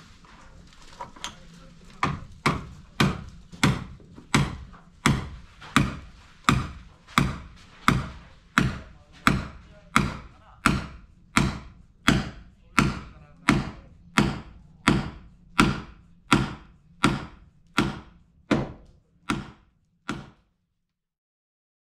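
Hammer blows on wood, struck at a steady pace of about two a second, after a few scattered strikes at the start, and stopping abruptly near the end.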